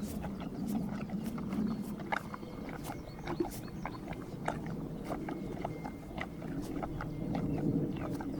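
Horses licking and gnawing at a salt block: many short wet clicks and rasps over a steady low rumble.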